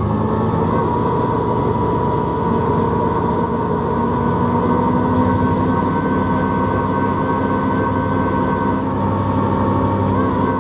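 Olympia ice resurfacer running steadily as it is driven over the ice: a constant machine drone with steady high whines on top, one of which drops out near the end.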